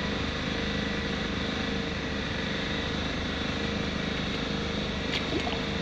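A steady engine hum with a constant pitch, unbroken throughout.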